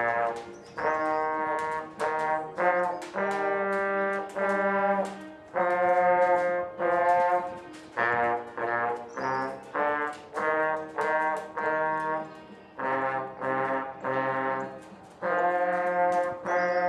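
Trombone playing a slow line of separate held notes, each about half a second to a second long with short breaks between them.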